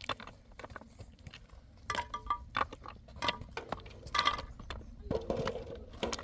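Irregular light clicks, knocks and clinks of hard objects being handled, busiest from about two seconds in.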